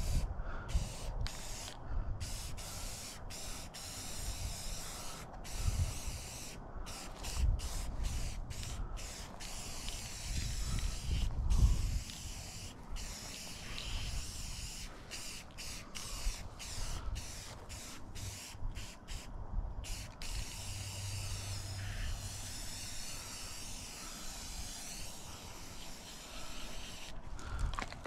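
Aerosol spray paint can hissing in many short bursts with brief pauses between them. A few low thumps and rumbles sound under the hiss partway through.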